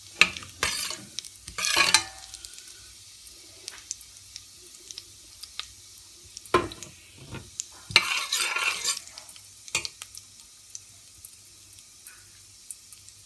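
Whole spices (cumin seeds, bay leaves, peppercorns, cloves) sizzling lightly in hot oil in a stainless steel pot, the tempering stage of a pulao. A steel spatula scrapes and clatters against the pot as they are stirred, loudest near the start and again about eight seconds in.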